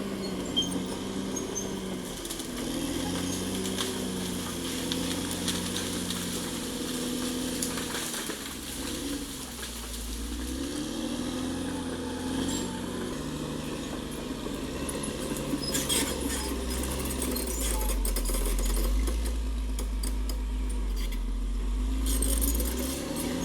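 Caterpillar D6R XL bulldozer's diesel engine working under changing load, its pitch repeatedly rising and falling. A heavy low rumble builds in the last few seconds, with a few clanks.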